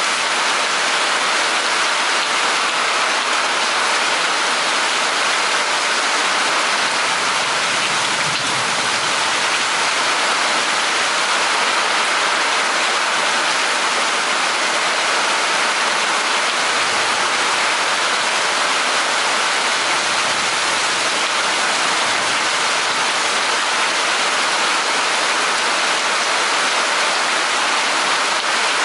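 Heavy thunderstorm rain pouring down steadily, an even hiss with no breaks.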